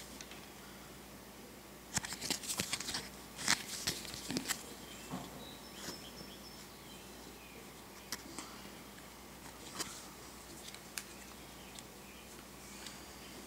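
Soft handling noises of cardboard 2x2 coin holders under the fingers: a quick cluster of clicks and scrapes a couple of seconds in, then scattered single taps as the holders are picked up and moved.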